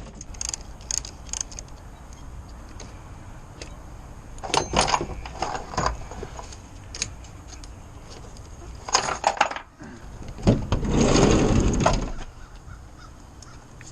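Clicks and metal clanks of hand tools loosening a pickup truck's battery terminals and hold-down, with a louder scraping sound lasting over a second near the end as the battery is worked out.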